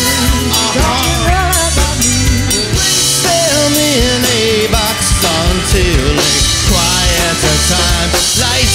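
A live pop-rock band playing, with a drum kit beat under a lead melody that slides up and down.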